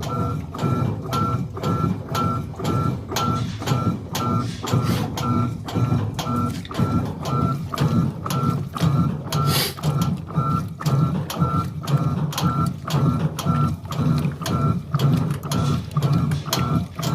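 Electrolux LES09 washing machine running, with a steady rhythmic pulse about twice a second, each pulse carrying a short high tone over a low motor rumble.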